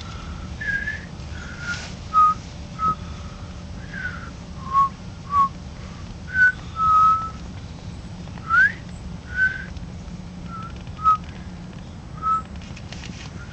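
A person whistling a loose string of about fifteen short notes of varying pitch, some sliding upward, with uneven pauses between them.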